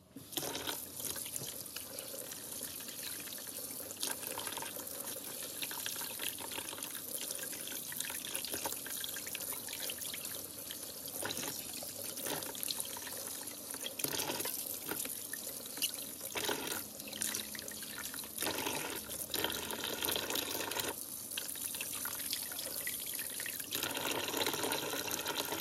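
Tap water running into a stainless steel kitchen sink and splashing over hands and fish being rinsed; it starts abruptly and runs on unevenly as the hands move under the stream.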